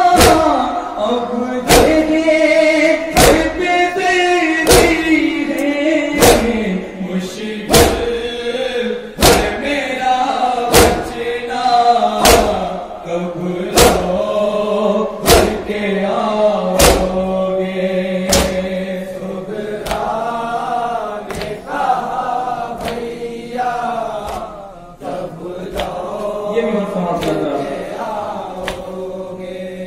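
Group of men chanting a nauha, a Shia lament, in unison through microphones, with rhythmic chest-beating (matam): sharp slaps about every three-quarters of a second that fade out after about 17 s while the chanting continues.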